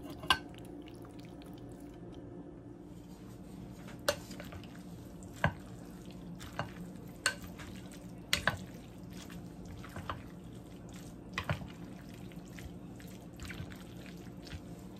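Drained farfalle pasta tipped into a glass bowl, then tossed with two wooden spoons: irregular knocks and clicks of wood against the glass and soft squishing of the dressed pasta, over a steady low hum.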